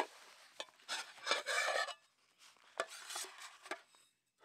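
Cloth drawstring stuff sack rustling as it is worked off a metal cookpot, in a few bursts, with a few light clicks of the pot and the utensils packed inside it.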